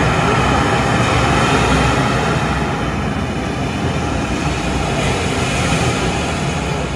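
Soundtrack of crashing ocean surf played loud over loudspeakers in an immersive wave-projection room: a steady rushing noise with a deep rumble, easing slightly near the end.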